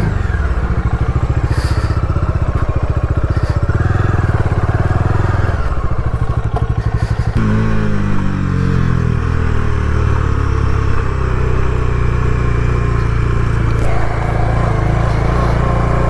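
Bajaj Dominar 400's single-cylinder engine running as the motorcycle pulls away and rides at low speed, a steady pulsing exhaust note. About halfway through the engine note changes and runs on smoother and steadier.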